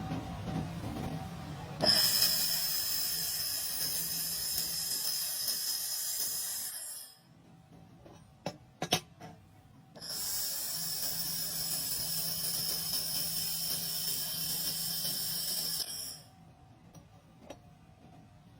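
Welding arc hissing steadily in two runs of about five and six seconds, with a few sharp clicks in the pause between them.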